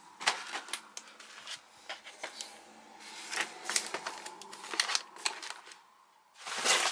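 Plastic freeze-dried ration pouches crinkling and rustling as they are handled and stood up on a table: an irregular run of small crackles and taps, with a louder rustle near the end.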